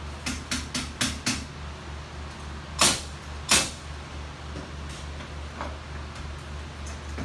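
Nailing on a house framing job: five quick light knocks at about four a second, then two much louder sharp bangs less than a second apart, over a steady low hum.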